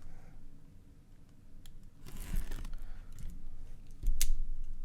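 Baseball card box and packs being handled: paper and wrapper rustling and crinkling begins about two seconds in, with light clicks and a soft knock near the end.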